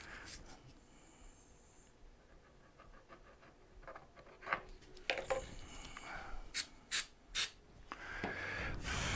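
An aerosol spray can hisses, three quick short puffs and then a longer spray of about a second and a half near the end, which is the loudest part. Before that, quiet rubbing and handling of a plastic part.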